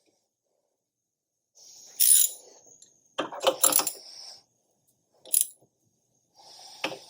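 Four short bursts of metal clinking and rattling from tools and hardware being handled, with silent gaps between; the sharpest clink comes about two seconds in.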